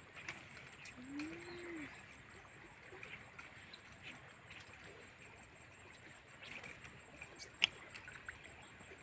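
Faint outdoor background with a single low cooing bird call about a second in, rising then falling in pitch, and one sharp click near the end.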